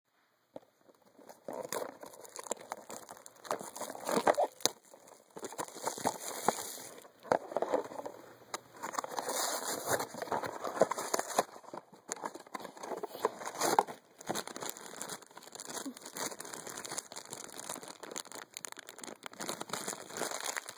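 Crinkly plastic packaging and a foil blind bag being torn open and handled, with irregular crackles and snaps, starting about a second and a half in. The source is a small vinyl bobble-head blind box and its wrapping.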